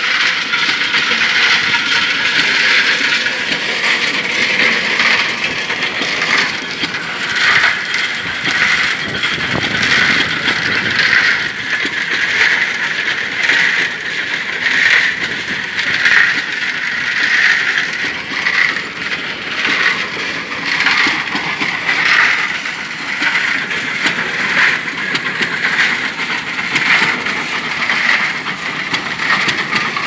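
1918 London concrete mixer running under its hit-and-miss Novo engine: the gearing and drum clatter steadily, with a pulse about once a second over continuous clicking.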